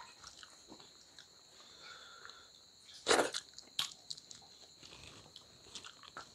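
Eating by hand from steel plates: faint chewing and fingers working rice on the metal, with one short, sharp burst of noise about three seconds in and a smaller one just after. A steady high-pitched whine runs underneath.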